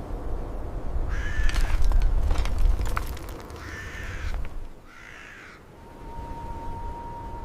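Three harsh bird calls over a deep low rumble broken by several sharp cracks, the rumble loudest in the first three seconds. A steady tone comes in near the end.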